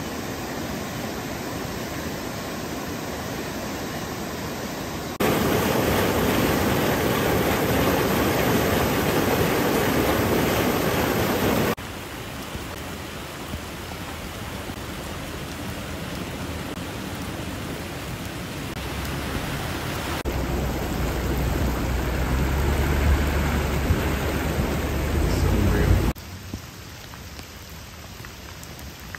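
Rushing floodwater and falling rain, a continuous hiss that jumps louder or softer at several abrupt changes. A low rumble joins it from about twenty seconds in and stops abruptly about six seconds later.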